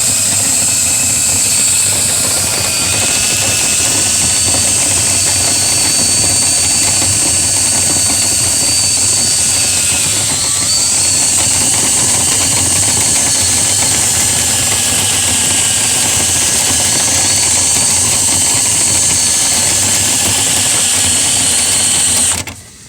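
Motor-driven dryer-vent cleaning equipment running steadily inside a lint-clogged duct: a high whine over a loud hiss. The whine sags briefly in pitch about halfway through, as if loaded down, and the motor cuts off shortly before the end.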